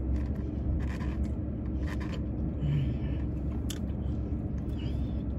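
A person eating tacos: chewing and small mouth sounds, with a few short crunchy scrapes and clicks, over a steady low hum in a car's cabin.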